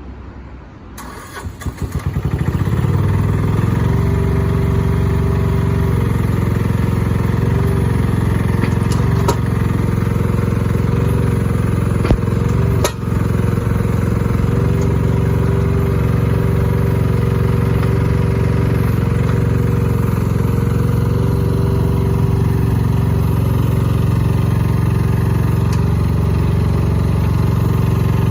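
Mitsubishi ME08B mini excavator's engine cranking and catching about two seconds in, then running steadily. A single sharp click about halfway through.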